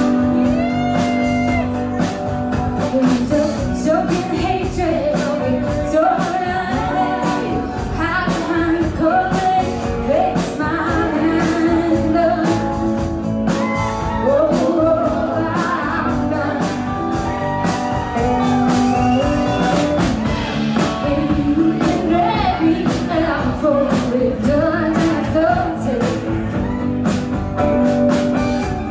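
A live song: a woman singing lead while playing an acoustic guitar, the music running steadily throughout.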